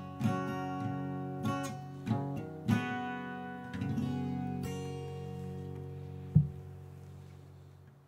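Acoustic guitar music: plucked notes and strums, then a chord left to ring and fade slowly, with one brief sharp thump about six seconds in.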